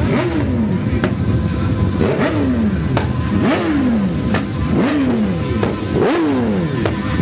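Sport motorcycle engine revved in sharp throttle blips, about six in a row at roughly one per second and a quarter, each rev rising suddenly and then falling away in pitch.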